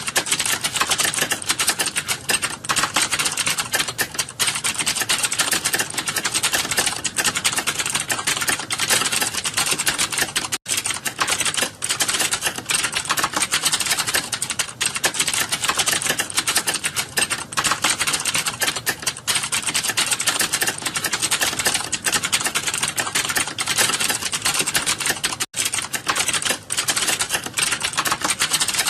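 Fast, continuous typing on a computer keyboard, a dense stream of key clicks during a timed typing test, with two momentary breaks.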